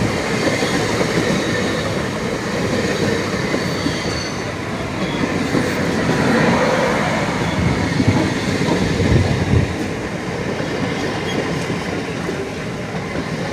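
Train moving on rails: a steady rumble and clatter of wheels on track, swelling to its heaviest about eight to nine seconds in.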